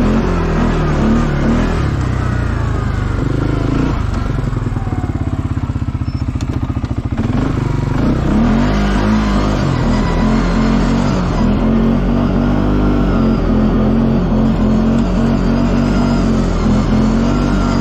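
CFMoto ATV engine running under way, rising and falling in pitch with the throttle. From about four seconds in it settles to a slow, pulsing idle for a few seconds, then picks up and revs again.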